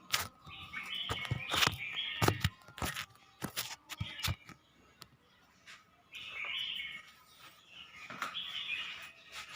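Red-whiskered bulbul singing short, chirpy warbled phrases in several bouts, with sharp clicks and taps between them. The bird is coming into full song.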